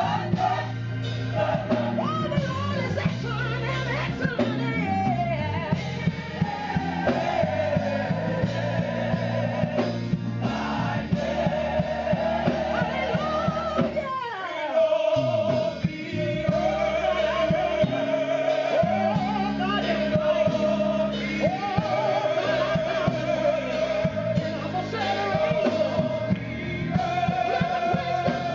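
Live gospel music: a woman's lead vocal, with long held notes, over a choir, keyboard and drums. About halfway through, the band drops out for a moment.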